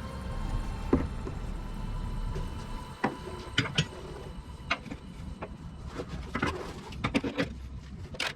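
A low rumble, then a series of scattered sharp knocks and clanks.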